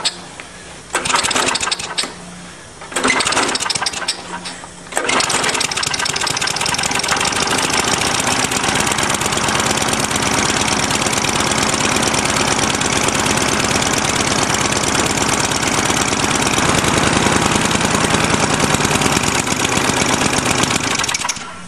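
Small Tecumseh push-mower engine pull-started: two short cranks on the recoil cord, then it catches about five seconds in and runs steadily before stopping abruptly near the end. The carburetor is still leaking fuel past the freshly cleaned needle and seat, in the owner's view.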